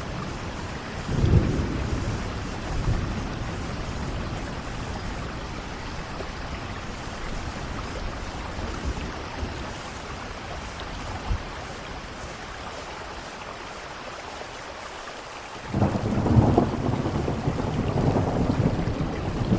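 Steady rain with thunder. A short rumble of thunder comes about a second in, and a louder rolling rumble breaks in suddenly near the end and keeps going.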